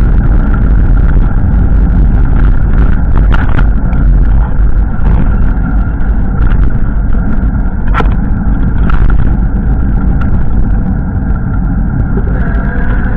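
Strong wind buffeting the microphone: a loud, steady low rumble, broken by a few sharp clicks.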